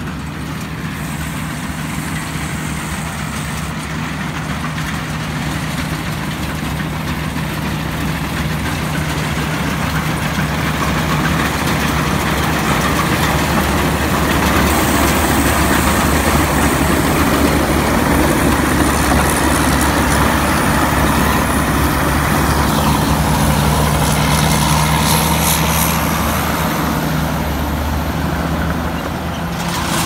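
Rice combine harvester with a Hino 195 turbo diesel engine running steadily under load. It grows louder over the first half and eases slightly near the end, with a thin high whine through the middle.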